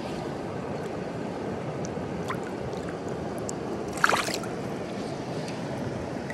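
Steady rush of shallow stream water close to the microphone, with a few faint drips and one short, sharp splash about four seconds in as a released trout kicks out of the landing net.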